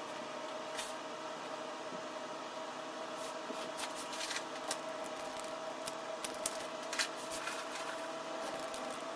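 Room tone: a steady hum holding one constant tone, with a few faint clicks and crinkles between about three and seven seconds in.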